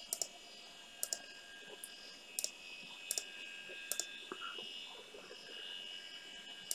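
Computer mouse button double-clicking about six times, each a quick pair of sharp clicks, over a faint steady high whine from the running computer.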